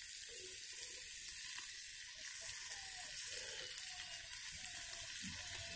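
Chopped tomatoes frying in hot oil in a steel pan, a steady soft sizzling hiss.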